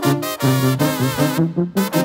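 Mexican banda music: a brass section of trumpets and trombones playing the song's upbeat instrumental intro over a steady beat.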